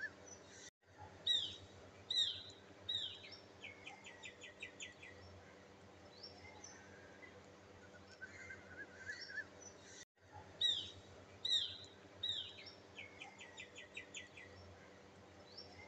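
Birds chirping and calling, with sharp falling chirps and a quick run of about six notes, over a faint steady hum. The sound drops out for an instant twice, and after each gap the same sequence of calls repeats: a looped birdsong recording.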